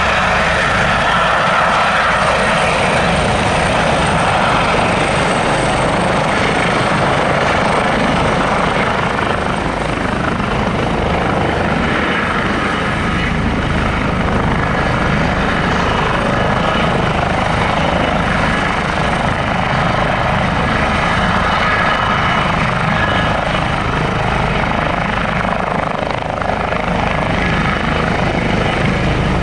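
Airbus H145 twin-turbine helicopter hovering low: steady, loud rotor and turbine noise with the hiss of its Fenestron ducted tail rotor, holding much the same level throughout.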